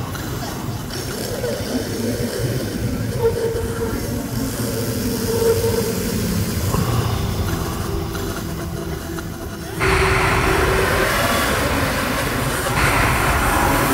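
Electronic music built from processed breath and voice sounds: a dense, noisy, rumbling texture with a sustained tone beneath it, which turns suddenly louder and fuller about ten seconds in.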